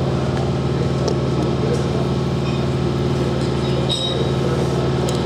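A steady low machine hum made of several pitches, with faint clicks as a die stock is turned to cut threads on a steel bolt, and a sharper tick about four seconds in.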